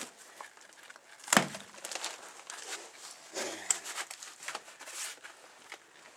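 Floor rug being tugged and pulled up off a rusted truck floor: rustling, crinkling and scraping, with a loud knock about a second in.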